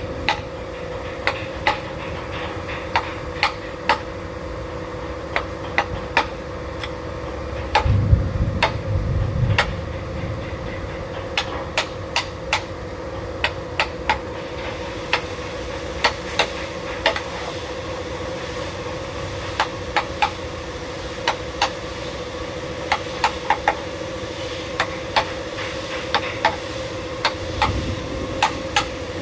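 Irregular sharp taps of a hand tool striking wood during carving, sometimes several a second, over a steady low hum. There are heavier low thuds about eight seconds in and again near the end.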